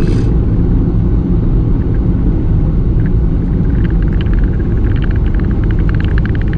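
Car driving on the road: a steady, low road-and-engine rumble. About halfway through, a rapid patter of light clicks joins it.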